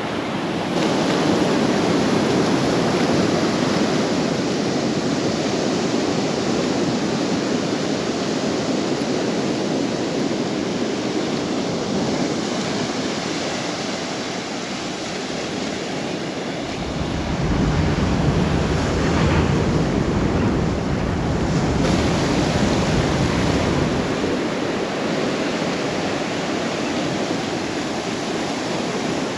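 Ocean surf breaking and washing in a steady rush, with a spell of low wind rumble on the microphone a little past the middle.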